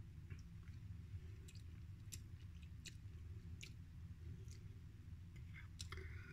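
Quiet eating sounds: chewing, with a scatter of faint spoon clicks against a ceramic soup bowl and a short scrape of the spoon in the bowl near the end, over a low steady hum.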